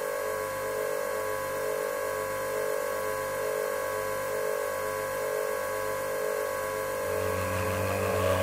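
A steady, droning hum of several held tones, with a low pulse about once a second. A deeper low hum joins about seven seconds in.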